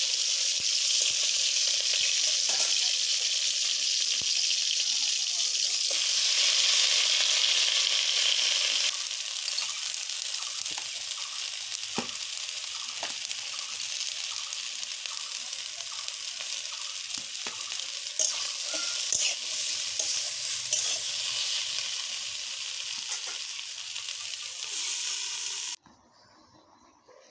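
Food sizzling as it fries in a pan: a steady sizzle, louder for the first nine seconds or so, with occasional light clicks. It cuts off abruptly near the end.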